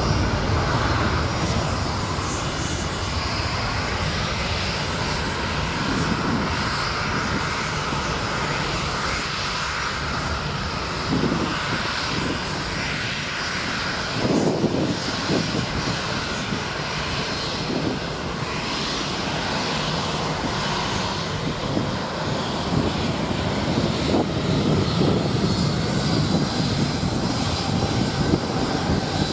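Turbofan engines of Boeing 737 and 787 airliners taxiing at low thrust: a steady jet whine over a continuous rush of air, with a low rumble beneath.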